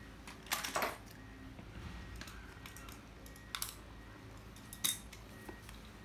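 Spinning fishing reels being handled and set down, giving a few sharp clicks and clatters: a quick cluster just under a second in, then single knocks about three and a half and five seconds in.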